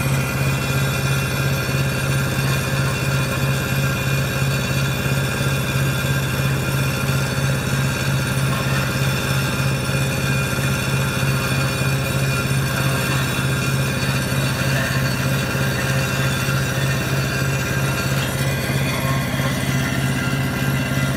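Small diesel engine of a wood chipper running at a steady speed, with a fast, even pulse.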